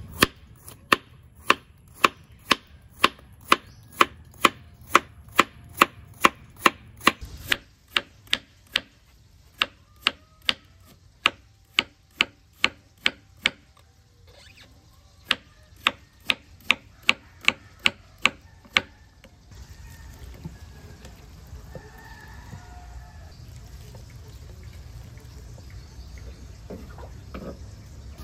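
A knife chopping vegetables on a cutting board in even strokes, about two a second, in runs with short breaks. After about twenty seconds the chopping stops and a steady low hiss remains.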